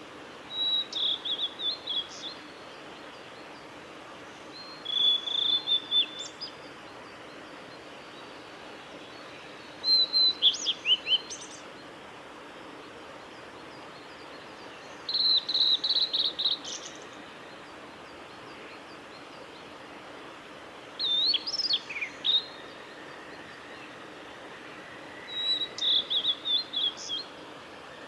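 Male blue-and-white flycatcher singing: six short phrases of clear high whistles and quick trills, each about a second and a half long, repeated every four to five seconds.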